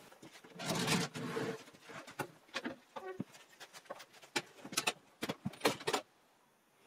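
Irregular sharp clicks and knocks of hands working at a small bandsaw, with a scraping rustle near the start and a short squeak about three seconds in. The knocking stops about six seconds in.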